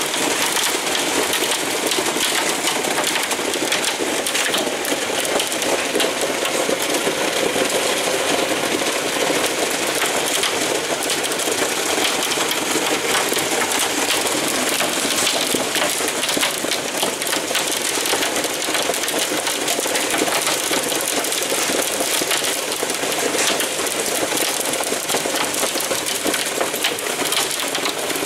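Hail mixed with heavy rain pelting a corrugated roof: a dense, steady clatter of countless small hits that never lets up.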